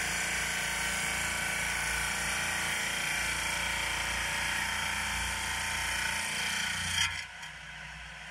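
Diamond-blade lapidary rock saw running steadily while cutting through a hard greenish stone, possibly jade, which is cutting quickly. About seven seconds in the sound falls off sharply to a quiet hum.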